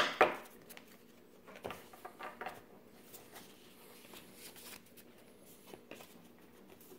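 Trading cards being handled: a couple of sharp snaps and rustles at the very start, then only faint, scattered rustles and ticks.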